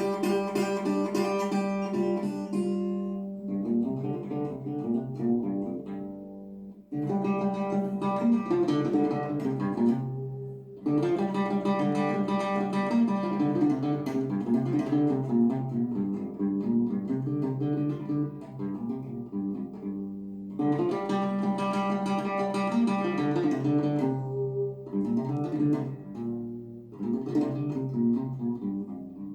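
Guitar music with a bass line, played back through KEF Q150 bookshelf speakers driven by an Aiyima A07 amplifier. The music drops off briefly between phrases several times.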